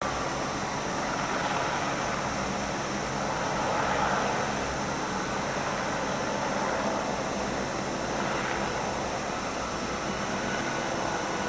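Steady drone of helicopters hovering overhead, an even noise with a faint low hum and no sharp events.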